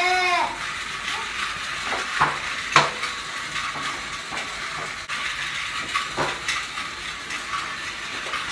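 A toddler's short squeal at the start, then the rustle of a paper sign being shaken about, with a few sharp clicks and taps over a steady hiss.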